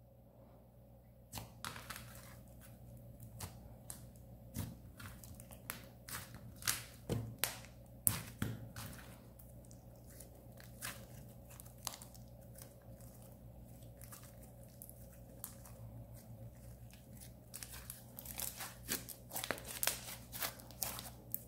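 Thick white slime being kneaded, pressed and stretched by hand as soft silk clay is worked into it: faint, irregular sticky crackles and clicks, busier near the end.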